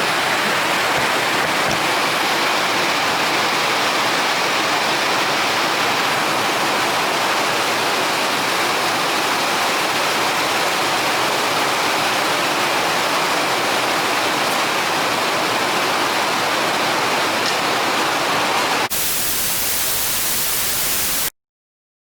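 Steady, heavy rain, an even hiss. About 19 seconds in it turns to a brighter, thinner hiss, then cuts off abruptly to silence about two seconds later.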